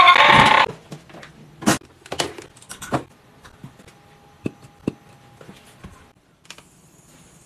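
A novelty eyeball doorbell's loud electronic sound effect cuts off in the first moment. Then come scattered light clicks and taps of small plastic toys being handled, with a faint steady tone for about two seconds in the middle.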